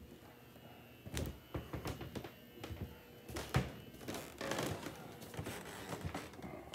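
Footsteps on an old hardwood floor: a run of irregular knocks and thumps starting about a second in.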